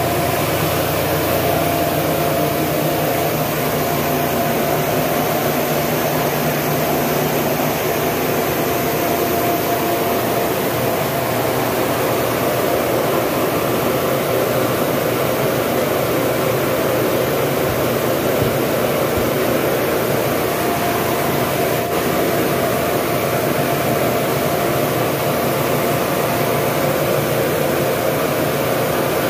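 Corn mill running steadily while grinding maize into grits, a constant machine drone with a steady hum.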